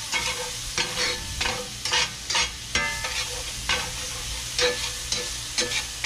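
Dove breast and onion sizzling in a cast-iron skillet while a metal spatula stirs and scrapes them, the scraping strokes coming about twice a second over the steady frying hiss.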